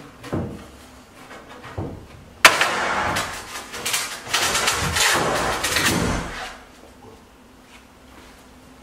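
A large countertop slab being pushed across the top of a wooden kitchen-island cabinet: a couple of light knocks, then a sudden loud scraping drag about two and a half seconds in that lasts about four seconds, uneven with small knocks in it, before stopping.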